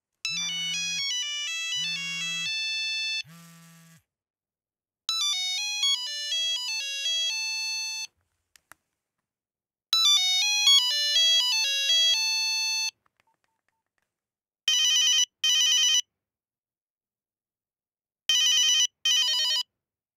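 Cell phone ringtones. First a short electronic melody with a low buzz pulsing three times beneath it, then a different synthesized melody played twice, then a trilling double ring that comes twice, with pauses between.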